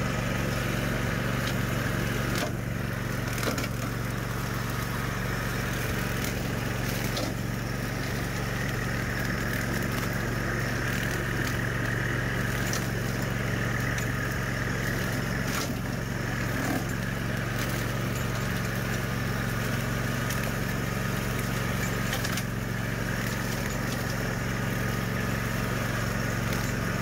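Swisher Brush King tow-behind rough-cut mower running steadily, its Kawasaki engine under load while the blade cuts through brush and tall weeds, with the towing subcompact tractor's engine running as well. A few sharp ticks sound now and then.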